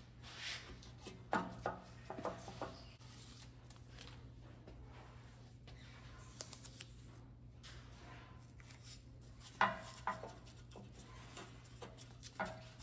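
Faint handling sounds as a sticky-backed foam seal strip is peeled and pressed onto an aluminium heater core on a steel workbench: a few short rustles and light taps, about a second in and again about ten seconds in, over a steady low fan hum.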